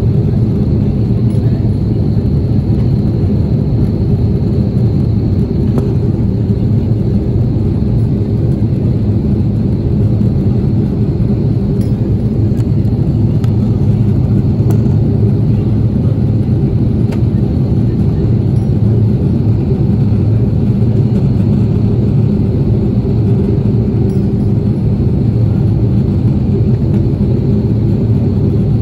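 Airbus A330-300 cabin noise in flight, heard from a window seat: the steady low drone of the twin jet engines and the airflow over the fuselage, with a faint high whine above it.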